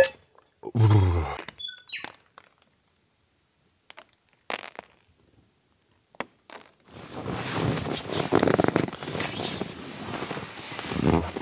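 Rustling and scuffing as leather hiking boots are pulled on by hand while sitting on a forest floor, starting about seven seconds in. Before that, a short low hum of a man's voice about a second in, then a few small clicks.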